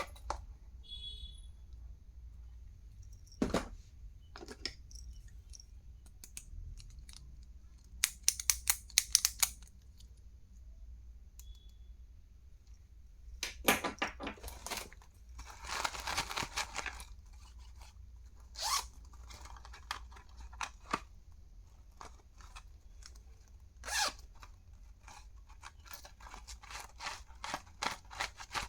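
Packaging being handled and torn open by hand: scattered taps and clicks, with a few short bursts of tearing and crinkling, the longest about halfway through.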